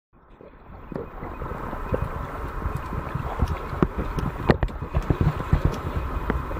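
Water sloshing and bubbling around a submerged camera: a muffled rushing with many irregular clicks and knocks, fading in over the first second.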